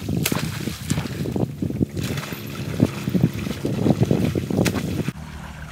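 Water splashing as a man wading in a canal beats the surface with a long pole, mixed with wind buffeting the microphone. The noise drops off about five seconds in.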